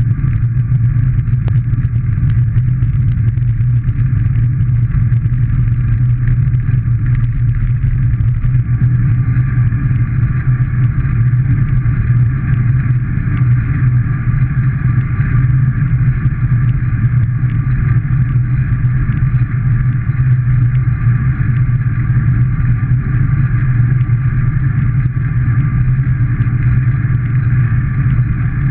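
Steady wind rush and road rumble on the microphone of a camera riding along on a moving bicycle, loud and unchanging throughout.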